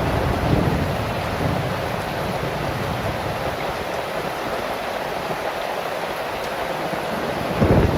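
Heavy rain falling steadily. A low thunder rumble dies away in the first second or so, and another rumble starts near the end.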